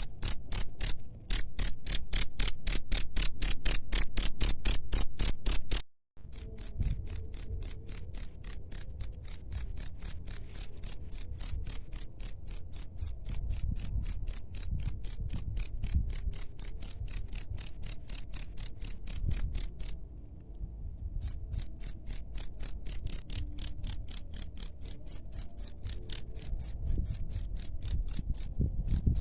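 Cricket chirping: a steady, rapid train of short shrill pulses that breaks off briefly about six seconds in and again about twenty seconds in.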